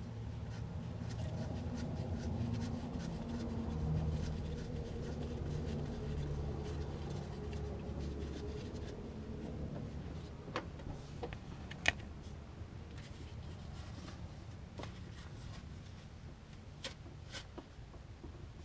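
Steady low hum under a Audi S3's Haldex coupling, with a few light metallic clicks from about halfway in as the fill plug is handled and threaded in by hand.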